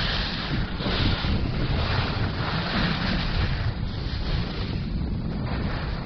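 Wind buffeting the microphone of a camera moving fast downhill behind a skier: a steady rushing noise with a heavy low rumble that swells and eases a little.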